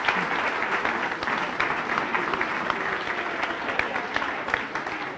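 Audience applauding, a dense patter of many hands clapping that dies down slightly near the end.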